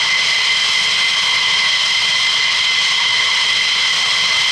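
F-15E Strike Eagle's twin Pratt & Whitney F100 turbofans running at low taxi power: a steady, high-pitched jet whine with no change in pitch.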